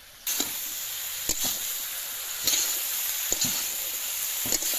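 Pui shak (Malabar spinach) sizzling in hot oil as it is stir-fried in a karahi, starting suddenly about a third of a second in, with a metal spatula knocking and scraping against the pan every second or so.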